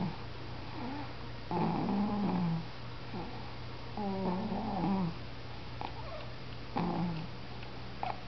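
Snoring in sleep: three rough snores, each about a second long or a little less, coming roughly every two and a half seconds, over a steady low hum.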